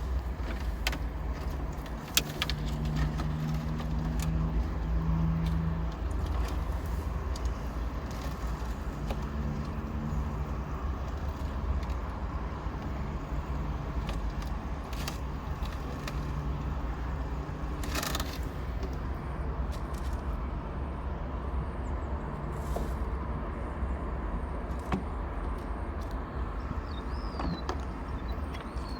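Steady low rumble of motor traffic, with vehicle engines humming past now and then.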